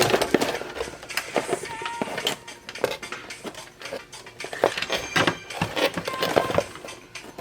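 Plastic sewing machine foot pedal controllers and their cords clattering and rustling as they are pulled apart and untangled, with irregular sharp clicks and knocks throughout.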